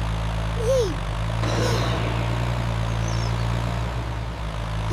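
Cartoon vehicle engine sound effect: a steady, even, low engine drone, with a short rising-and-falling tone about a second in.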